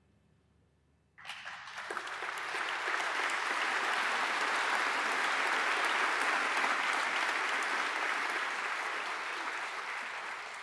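Audience applauding, starting suddenly about a second in, swelling and then tapering off near the end.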